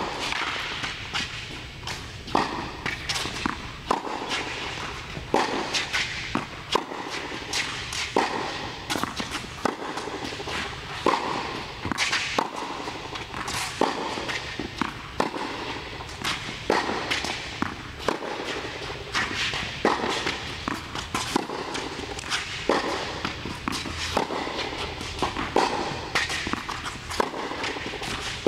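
Tennis balls struck by a racket in a rally-style drill: sharp pops about every second or so, some in close pairs, echoing in an indoor tennis hall.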